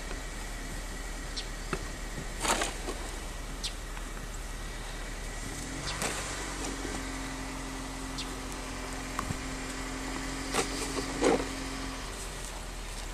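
A plastic snow shovel scraping and knocking against a snow-covered driveway a few times, in short separate strokes. A vehicle engine hums steadily in the background from about halfway in until near the end.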